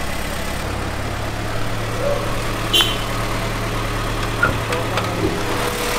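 Honda B18C Type R 1.8-litre DOHC VTEC four-cylinder, swapped into a Civic, idling steadily, with a single short click about halfway through.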